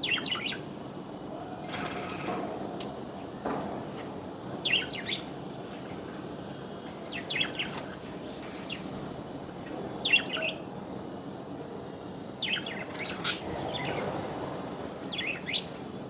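Small birds chirping in short, quick bursts of high notes that come back every two to three seconds, over a steady background hiss; a brief rustle sounds about two seconds in.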